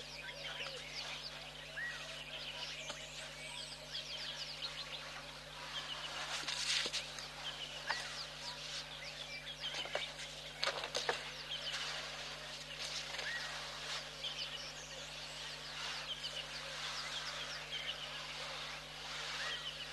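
Outdoor ambience of many birds chirping and calling, over a steady low hum. A few short knocks stand out around the middle.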